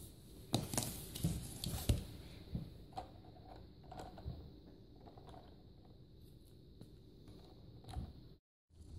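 Plastic toy screwdriver clicking and tapping against a take-apart toy truck's plastic wheel and hub. There is a cluster of taps in the first two seconds, then only sparse faint ticks.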